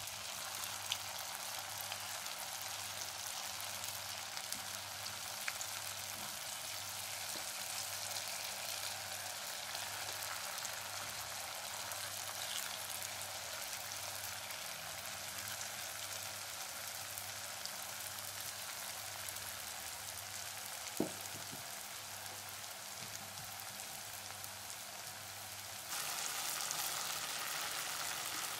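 Batter-coated potato strips deep-frying in hot oil in an iron kadai on a medium flame, the first fry: a steady sizzling hiss. One sharp knock comes about three-quarters of the way through, and the sizzling gets louder for the last couple of seconds.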